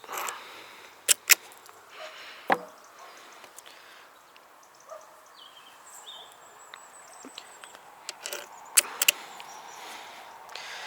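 A handful of sharp clicks and knocks over faint background hiss: pressure-washer nozzle and quick-disconnect fittings being handled as the nozzle is swapped. The pressure washer is not running.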